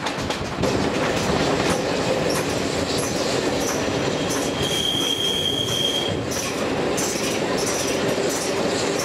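Steam-hauled passenger carriage rolling along the track, its wheels rumbling on the rails. Midway a steady high wheel squeal sounds for about a second and a half as the train takes a curve, followed by shorter, fainter squeals.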